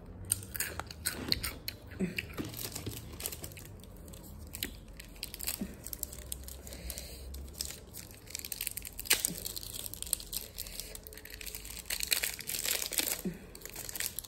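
Close-up chewing and crunching of a chamoy pickle topped with Takis chips, with irregular crisp crunches and mouth clicks.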